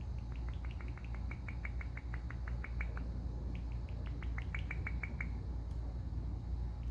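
Indian ringneck parakeet giving rapid runs of short, sharp chirps, about seven a second, in two bursts with a short pause between them.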